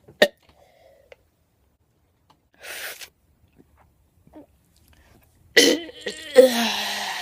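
A sharp click, a short breathy rush a few seconds in, then a loud vocal outburst from a person, its pitch falling, starting about two seconds before the end.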